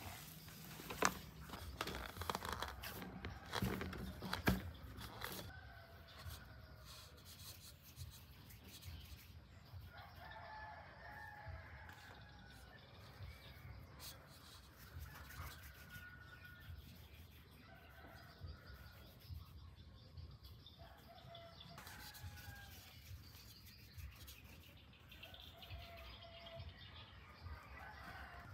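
Roosters crowing faintly several times, each crow a second or two long, from about ten seconds in. A few sharp knocks come in the first five seconds.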